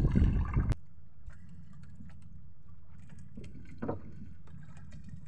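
Wind and sea noise on the microphone aboard a small outrigger canoe: a loud low rumble of wind buffeting that cuts off suddenly under a second in, then a steady quieter rush of wind and water with a few faint clicks.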